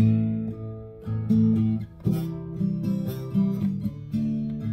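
Acoustic guitar strummed in a steady rhythm. It begins suddenly with the first chord, and the chords change every second or so.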